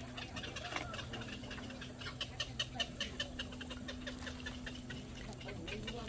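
Ducks giving soft, quick clucking chatter: a rapid run of short notes.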